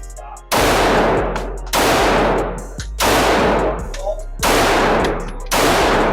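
Five pistol shots fired at a slow, steady pace, about one every second and a quarter, each followed by a long decaying echo. Background music with a steady beat runs underneath.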